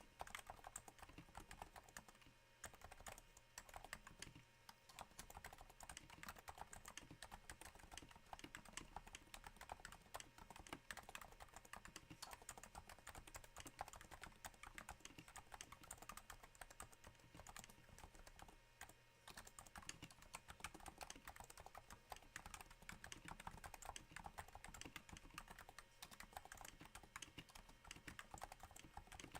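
Typing on a Cooler Master Novatouch keyboard, its Topre switches fitted with Hypersphere silencing rings, on a thin desk mat: a quiet, continuous patter of soft keystrokes, a little like rain.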